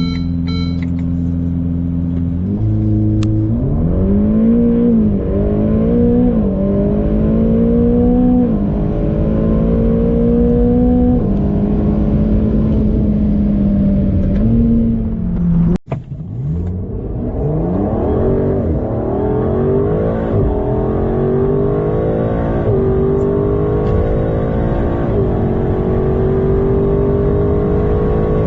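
Two sports cars, a Ferrari Roma with its 4.0 V8 and an Aston Martin DBS with its 5.2 V12, each launching hard and accelerating through the gears, one after the other. The first engine holds steady revs for about three seconds, then launches; its pitch rises and drops back at each upshift. A sudden cut a little past halfway leads into the second car's run, rising through five upshifts.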